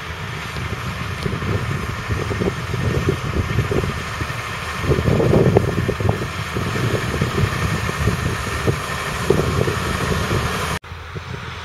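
Valtra T174's 7.4-litre six-cylinder diesel engine running under load as the tractor pulls a five-furrow reversible plough, growing louder as it approaches. The sound breaks off abruptly near the end.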